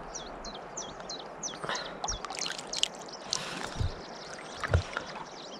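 Shallow river water lapping and trickling over stones at the bank, with a few soft knocks. Through the first two seconds a small bird repeats short, falling high notes, about three a second.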